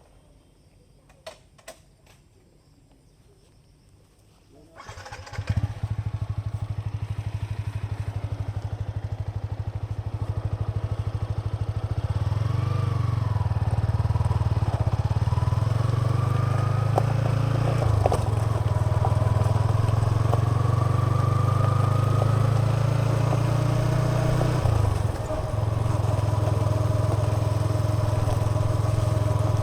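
Yamaha XSR 155 motorcycle's single-cylinder engine starting about five seconds in, after a few faint clicks, then running steadily, a little louder from about twelve seconds in.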